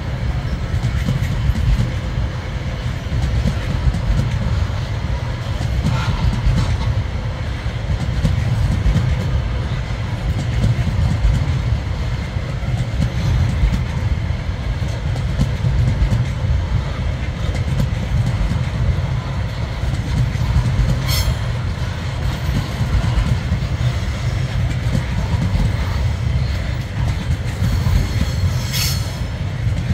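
Log-laden freight wagons rolling past on the rails: a steady, loud low rumble of wheels on track, with a few brief high squeaks, about six seconds in, about twenty-one seconds in and near the end.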